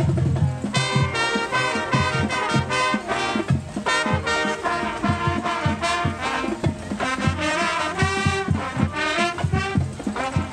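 Swing-style brass music, horns playing a busy melody over a steady beat.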